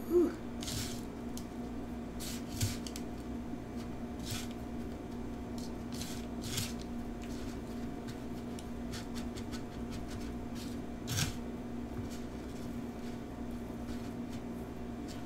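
Crushed Hot Cheetos crumbs crunching and rustling under fingertips as a battered pickle is pressed and rolled in them. The crackles are scattered and uneven, with a few sharper ones standing out.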